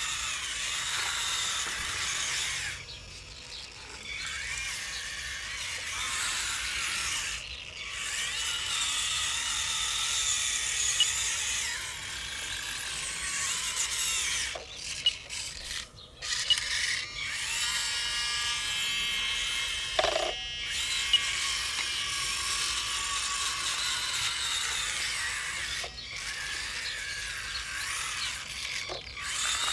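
Small electric motors and plastic gearing of RC model construction vehicles working, a high whine and buzz that rises and falls in pitch as they speed up and slow down, stopping briefly several times, with a few light clicks.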